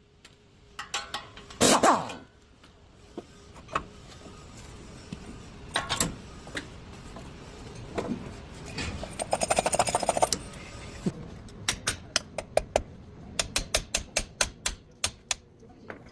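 Irregular sharp clicks and knocks, with a short fast rattle about nine seconds in and a quick run of clicks over the last few seconds.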